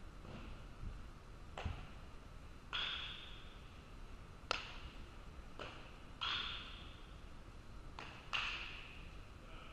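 A series of about seven sharp knocks, three of which ring on as a short ping that fades over about half a second.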